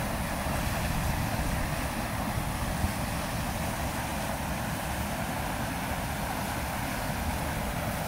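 Floodwater runoff rushing through a concrete stormwater outlet after a downpour: a steady, unbroken rushing noise with a heavy low rumble.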